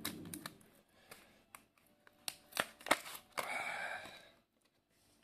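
Clear plastic blister packaging and a cardboard insert being handled as a small flash drive is freed: a series of sharp plastic clicks and crackles, then about a second of crinkling past the middle.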